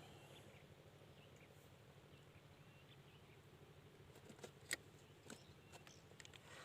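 Near silence: faint outdoor background with a few soft clicks, one sharper click a little after the middle.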